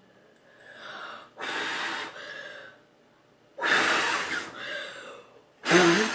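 A person blowing hard in three bursts, about two seconds apart, trying to blow a bubble in slime that is too thick to inflate.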